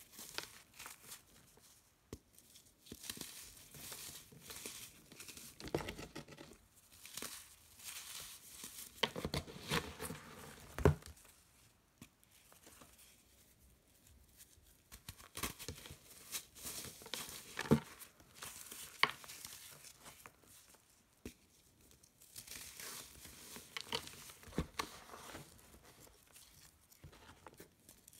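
Hands crushing and crumbling compacted, dried sand blocks: irregular gritty crunching and crackling in clusters as the blocks break apart and the pieces fall onto loose grit, with a few sharp snaps as a block breaks.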